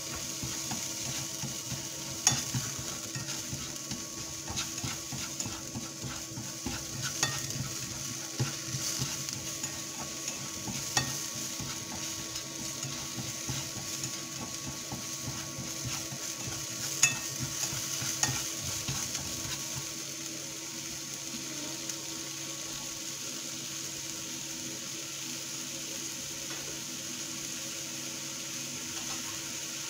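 Small mushrooms sizzling in a thin film of oil in a nonstick frying pan, stirred with a utensil that clicks against the pan now and then. After about two-thirds of the way through the stirring stops and only the steady, slightly quieter sizzle remains, with a faint steady hum under it. The low heat and little oil let the mushrooms cook firm and crisp rather than stew.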